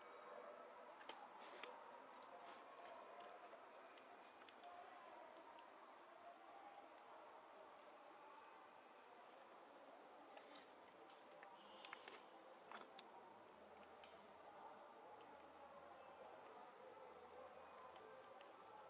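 Faint, steady high-pitched insect calling, with a few faint ticks over quiet outdoor air.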